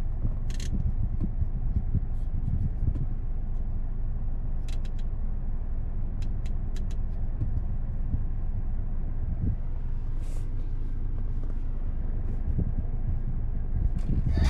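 A 2024 Mazda CX-5 2.5 S being driven: a steady low rumble of engine and road noise, with scattered light ticks and a few short hisses over it.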